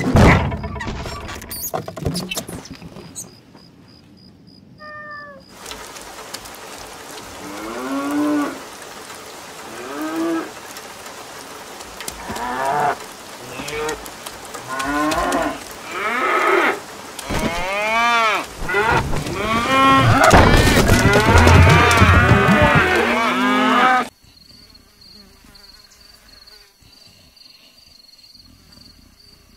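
A heavy thud, then cattle mooing again and again over a steady rain hiss. The moos come faster and overlap until everything cuts off suddenly about three quarters of the way through. After that only a faint steady insect drone remains.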